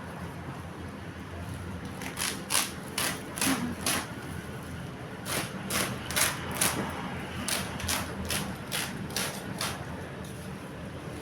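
Irregular clicks and rustles of cassette tapes and their packaging being handled, about fifteen short sharp sounds bunched in the middle, over a steady low hum.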